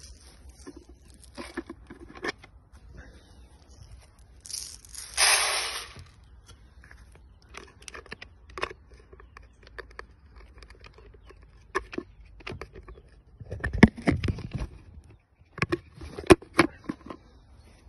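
Clicks, scrapes and rustles of a red plastic poultry feeder with pellets being handled. A rushing noise lasts about a second and a half about five seconds in, a low rumbling burst comes near fourteen seconds, and sharp clicks follow.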